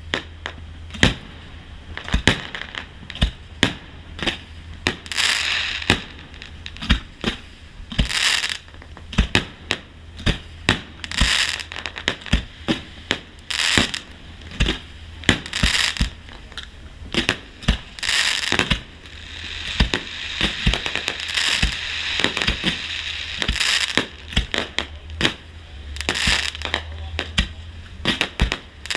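Aerial fireworks going off in quick succession: many sharp bangs a second, with crackling, hissing shell bursts every few seconds and a longer stretch of crackle around two-thirds of the way through.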